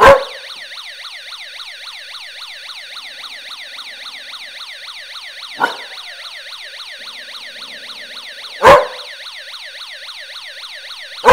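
A siren wailing in a fast, even up-and-down sweep, about four cycles a second, runs under a Border Collie's loud barks: one at the start, a lighter one about five and a half seconds in, and two more near eight and a half and eleven seconds.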